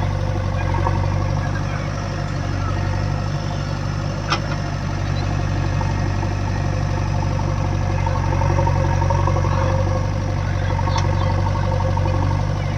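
Diesel engine of a JCB 3DX backhoe loader running steadily at a low idle-like speed, with one sharp click about four seconds in.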